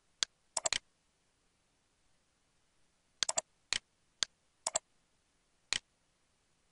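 Computer mouse being clicked: about a dozen sharp clicks, some single and some in quick runs of two or three, with quiet between them.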